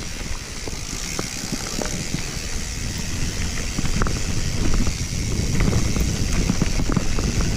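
Mountain bike descending a rough dirt trail: tyres rumbling over the ground, with the bike rattling and clicking over bumps throughout.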